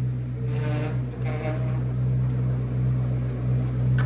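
A steady low mechanical hum with a few overtones, unchanging throughout, with two faint brief sounds about half a second and a second and a half in.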